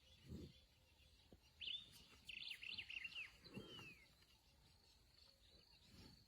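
An animal snoring faintly in slow, low, rough breaths, three of them a few seconds apart. Between the first two breaths a bird gives a quick run of chirps and then a falling whistle.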